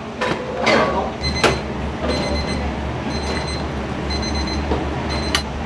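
Electronic timer beeping, a high repeating beep in groups about once a second, the kind of kitchen timer a ramen shop uses for boiling noodles. A few clinks of dishes and a steady low hum of kitchen equipment run underneath.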